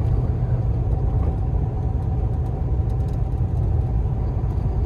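Long-haul truck's engine and road noise heard from inside the cab while driving slowly, a steady low rumble with a faint steady whine above it.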